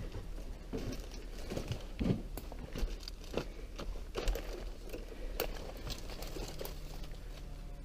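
Dry leaves and twigs crunching and rustling under slow, irregular footsteps, a crunch every half second to a second or so.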